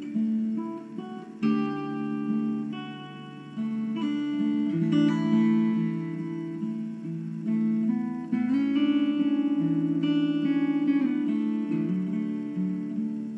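Acoustic guitar in DAAEAD tuning playing an instrumental jig, low notes held ringing under a moving melody.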